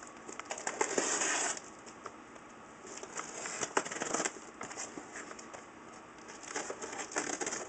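Cardboard shipping box being handled and opened: crackling and scraping of cardboard and packing tape, with scattered clicks. The loudest scraping comes about a second in, with more around three to four seconds and again near the end.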